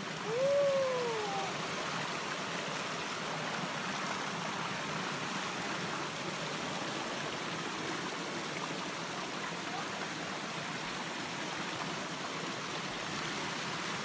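Small waterfall pouring and splashing onto rock close by, a steady rushing of water. A short vocal cry that rises then falls in pitch about half a second in.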